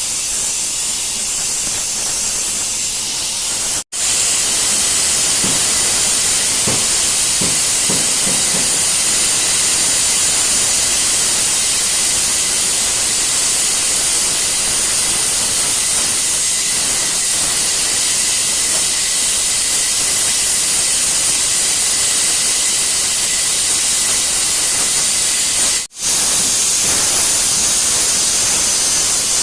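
Welding on a broken motorcycle footrest holder: a loud, steady hiss and sizzle. It cuts out briefly about four seconds in and again near the end.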